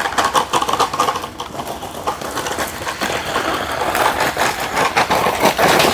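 DEERC 9308E RC truck driven at its maximum speed setting, its small electric motor and gears whirring with rapid clicking and knocks.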